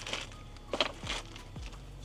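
Light handling noises from new engine parts and their packaging, with two soft clicks a little under a second apart over a low steady hum.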